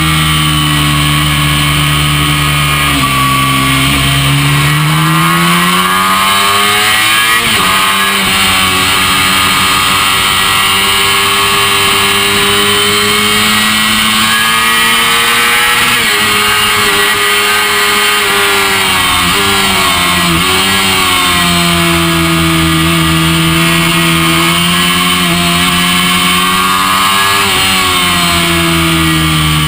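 Honda NC30 race bike's V4 engine running hard on track. The pitch climbs through the revs and drops suddenly several times, at each gear change and when the throttle is shut.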